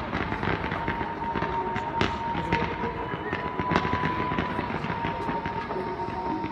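Fireworks crackling and popping densely, with several sharper bangs among them. A thin steady tone runs through them from about a second in.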